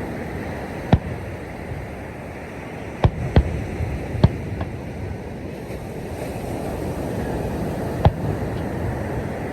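Fireworks going off at a distance: five sharp bangs scattered across the stretch, two of them close together, over a steady rush of surf.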